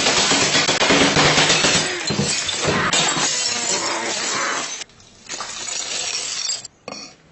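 Dense, loud crunching and crackling noise that stops abruptly about five seconds in, then comes back for about a second and a half.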